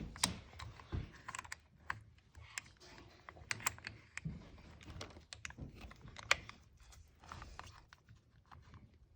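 Faint, irregular small clicks and taps of the parts of a kitchen faucet head being handled and worked apart by hand.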